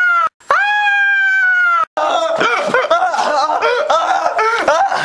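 A man screams in a long, high-pitched shriek that falls slightly in pitch and cuts off abruptly. The same scream repeats once, followed by a few seconds of rapid, choppy, high-pitched vocalizing.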